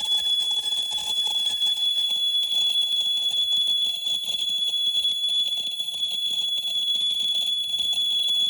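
Electronic noise music: a steady, piercing high tone over a crackling, fizzing layer of noise.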